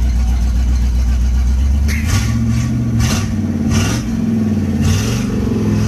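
Pickup truck engine idling, then revved up and down several times from about two seconds in.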